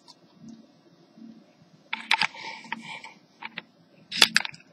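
Sharp plastic clicks and rattles from hands handling an HP 6530b laptop with its keyboard lifted out. A few clicks with a short rustle come about two seconds in, then two quick ticks, then the loudest cluster of clicks near the end.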